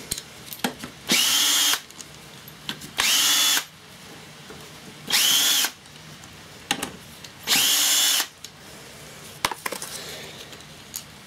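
Cordless power driver buzzing out already-loosened crankcase cover bolts on a small Briggs & Stratton engine: four short bursts, each rising in pitch as the motor spins up, with small metal clicks between them as the bolts are taken off.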